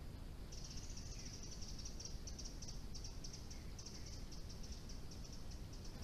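A small songbird singing one long, high-pitched trill of rapid notes, starting about half a second in, over faint background hiss.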